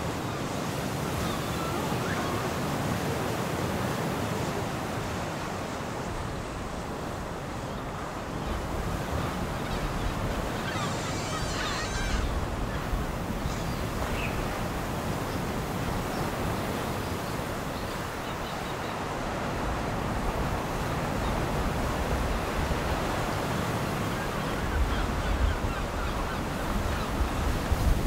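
Sea surf washing steadily onto the shore, with wind gusting on the microphone about a third of the way in and again near the end.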